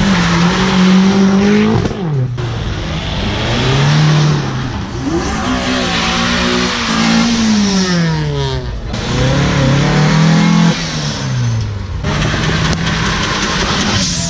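Several cars pulling away hard one after another, each engine revving up and dropping back between gears, so the engine pitch rises and falls several times in a row.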